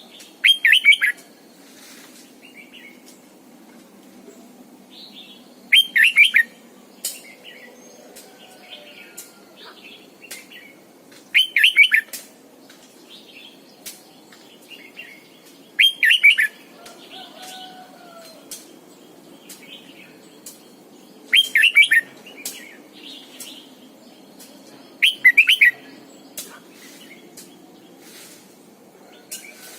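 Red-whiskered bulbul singing short, loud song phrases at a regular pace, six in all, about one every four to five seconds, with faint chirps between them.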